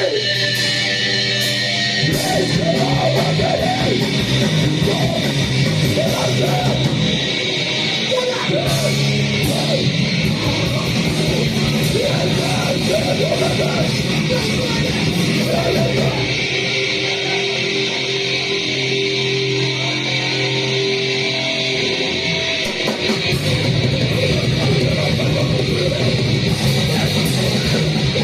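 Live band playing loud, distorted heavy noise-rock: a dense wall of electric guitar with yelled vocals over it.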